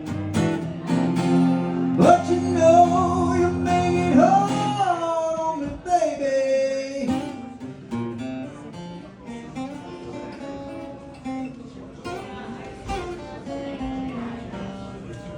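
Live acoustic guitar with a singer holding long notes that slide in pitch. After about 8 seconds the voice drops out and the guitar carries on more quietly.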